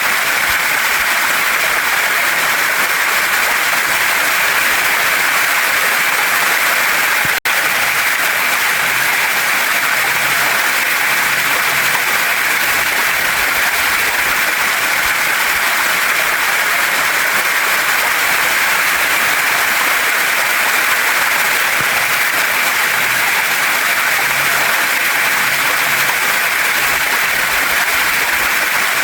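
Steady rush of a waterfall and stream pouring over rocks, an even, loud hiss. It breaks off for an instant about seven seconds in.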